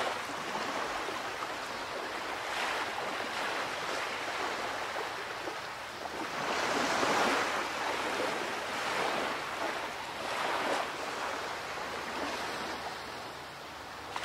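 Water rushing and washing along the hulls of a moving catamaran, mixed with wind, heard from on board. It swells and fades every few seconds.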